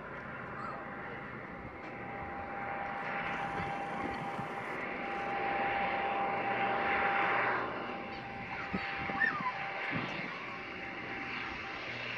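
A Dornier 228's twin Garrett TPE331 turboprop engines on final approach, a steady whine over a broad rushing noise. It grows louder to a peak about halfway through as the aircraft nears, then eases a little as it flares over the runway.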